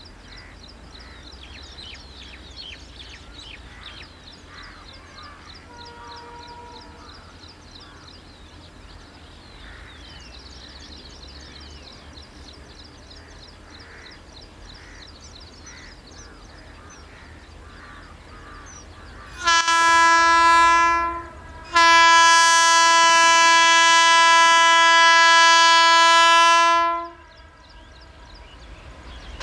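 WAG12 electric freight locomotive's horn: a blast of under two seconds, then after a short gap a long steady blast of about five seconds, as the locomotive approaches. Before the horn there is only a faint distant rumble with scattered high chirps.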